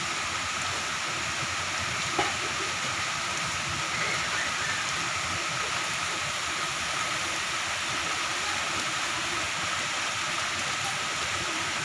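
Moderate to heavy rain falling steadily, an even hiss, with one brief knock about two seconds in.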